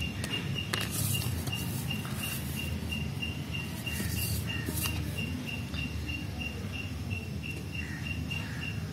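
An insect chirping in an even, steady string of short pulses on one high pitch. Light rustles and taps come from a paper sheet and a plastic ruler being handled.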